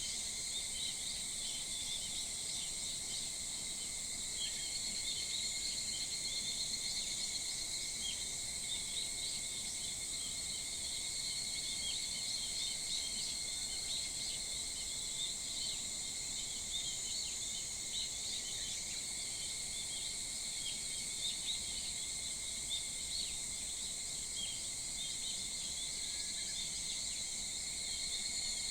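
Summer early-morning chorus of insects: several steady trilling drones at different pitches, overlapping and unbroken, with many small quick chirps running through them.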